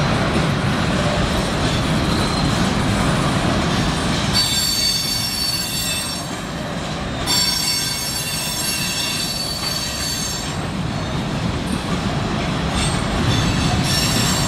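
Freight train cars rolling past close by, wheels running on the rails, with a high-pitched wheel squeal that sets in about four seconds in, lasts around six seconds, and returns near the end.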